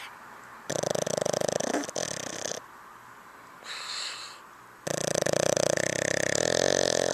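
Snoring: two long, loud, rattling snores about two seconds each, with a shorter, softer breath between them.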